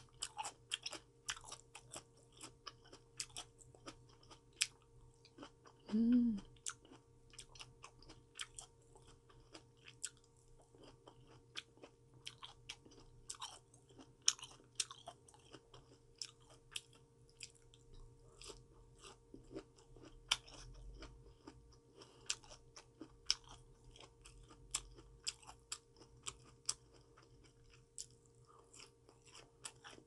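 Close-miked chewing of crisp raw vegetables and fruit: a steady run of sharp, wet crunches throughout. A brief hummed sound from the eater about six seconds in.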